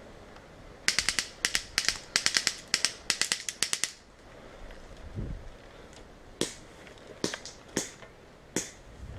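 Airsoft gun firing: about three seconds of short rapid bursts of sharp clicking shots, then four single shots about a second apart.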